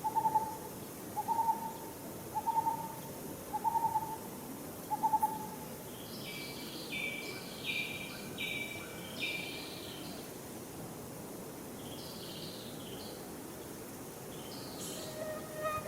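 A bird hooting steadily about once a second, five even hoots that stop about five seconds in; then another bird gives runs of short, higher, falling calls, over a steady outdoor hiss.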